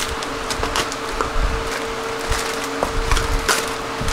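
Clear zip-lock plastic bag crinkling and crackling as it is opened and a white cardboard box is slid out, in irregular sharp crackles. A faint steady hum runs underneath.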